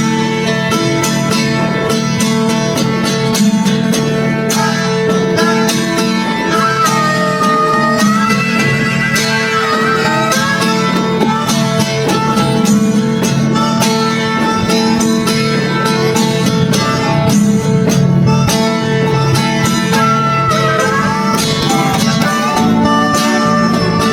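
Background music: an upbeat bluegrass-style tune on acoustic guitar and fiddle, played without a break.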